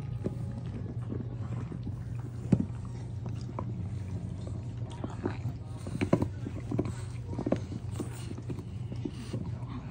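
English bulldog gnawing a chew stick: irregular clicks and crunches of teeth on the chew, thickest in the second half, over a low steady hum.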